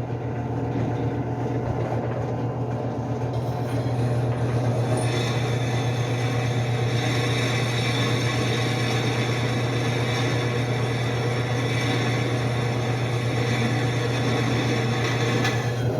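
Benchtop drill press motor running with a steady hum while a 3 mm bit drills into 6 mm steel angle. About four seconds in, a high-pitched grinding of the bit cutting steel joins in, and it stops near the end as the hole goes through.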